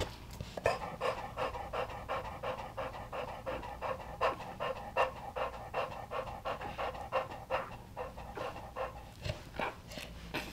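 A Cane Corso panting rapidly and steadily, about four breaths a second, as a bitch does while in labour and whelping.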